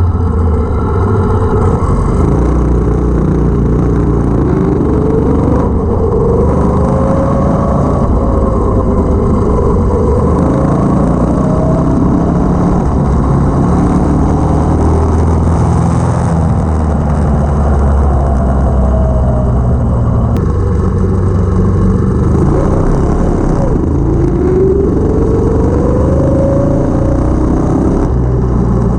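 Go-kart's 212cc single-cylinder engine with a Stage 1 kit running under load while driving, its pitch rising several times as it accelerates.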